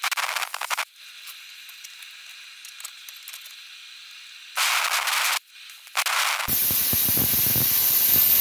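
Handheld plasma cutter working on steel plate: three short bursts of hissing with a fainter steady hiss between them, then about six and a half seconds in a longer cut with a loud hiss and a high whine.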